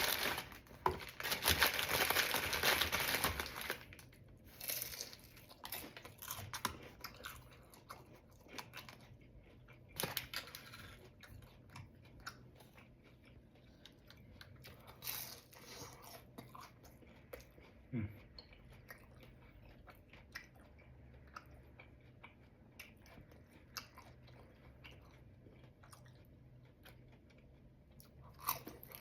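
A person biting and chewing crunchy food close to the microphone, with scattered sharp crunches. In the first few seconds, takeout packaging crinkles loudly.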